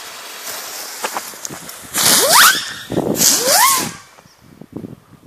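Two small Lesli Moskitos fireworks: fuses fizzing, then about two seconds in the first shoots off with a loud hissing rush and a whistle rising in pitch, and the second does the same about a second later. Both fade out quickly.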